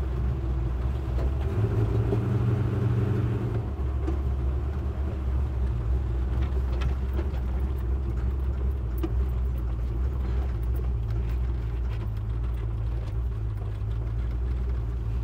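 Land Rover Defender 90's Rover 3.9 V8 running as the truck drives along, a steady low engine hum.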